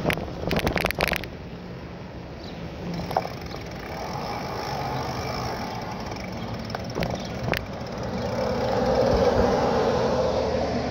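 Bicycle being ridden: a quick burst of rattling in the first second or so, then steady tyre and wind noise with a few single clicks, growing louder about eight seconds in.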